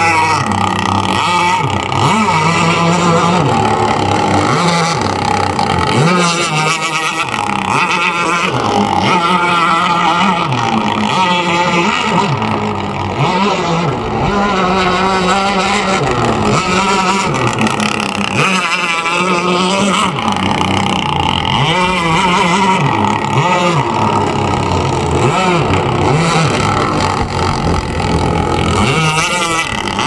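Zenoah two-stroke gas engine of a radio-controlled speedboat running on the water, its pitch rising and falling again and again as the throttle is opened and backed off through passes and turns.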